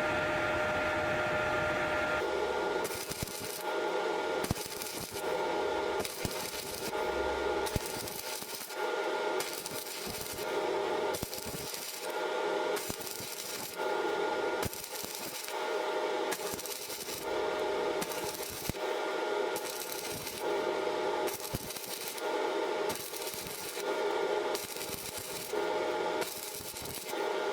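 Rhythmic rubbing strokes, about one every second, over a steady high hum; the first couple of seconds are a steady hiss before the strokes begin.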